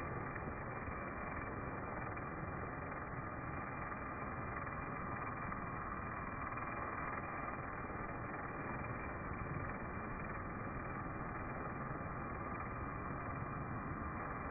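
Pressure washer running steadily, an even mechanical hum and spray noise with no break or change.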